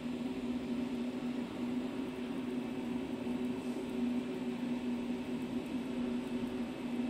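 JPT MOPA 30 W fiber laser marking machine running while it engraves a polycarbonate ID card: a steady electrical hum with a low buzzing tone over an even fan-like hiss.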